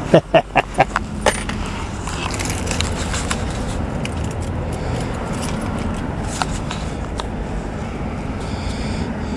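Steady road and engine noise of a car, heard from inside the cabin while driving. A quick run of sharp clicks or knocks comes in the first second.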